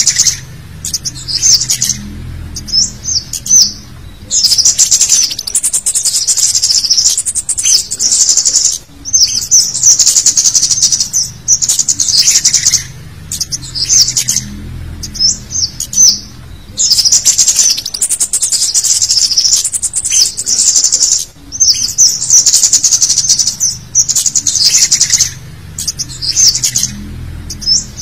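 Recorded lure call of the cit kemade (scarlet-headed flowerpecker): busy, high, sharp chirps and twitters in bursts a second or two long with short gaps, the sequence looping about every six to seven seconds.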